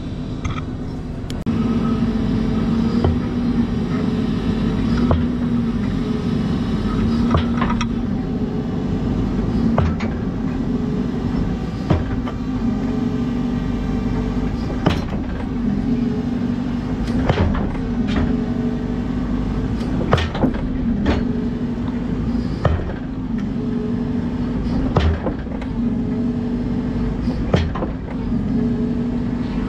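Volvo excavator engine working hard under hydraulic load, its note dipping and rising, while a heavy concrete block is slammed down onto a steel pier to drive it: sharp knocks about every one to two seconds.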